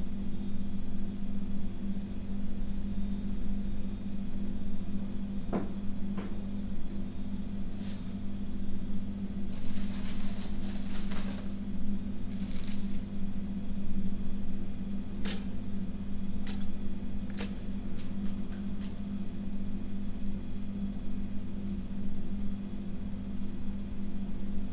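Foley kitchen sounds over a steady low hum: about ten seconds in, a packet wrapper crinkles and tears in two spells, followed by a handful of light, separate clicks and knocks at the counter. A couple of soft footsteps or knocks come earlier.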